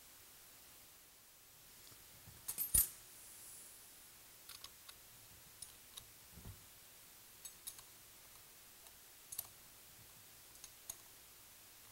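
Light metallic clicks and taps of nuts and a small wrench against the Hypro D30 diaphragm pump's manifold as the manifold nuts are put back on and run down. A louder clatter comes about two and a half seconds in, then single clicks follow every second or so.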